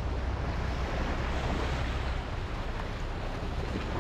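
Steady wash of small waves breaking on a sandy beach, with wind rumbling on the microphone.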